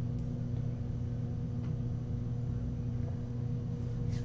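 Room tone: a steady low electrical hum, with nothing else standing out.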